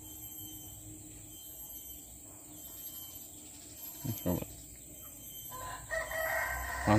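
A rooster crows once in the last second and a half, one long call that bends slightly down at its end, over faint background. Two short knocks, one about four seconds in and a louder one right at the end.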